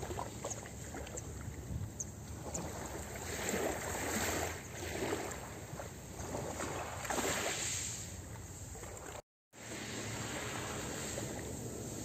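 Small sea waves lapping and washing onto a pebble beach, swelling and fading every second or two. The sound cuts out for a moment a little after nine seconds in.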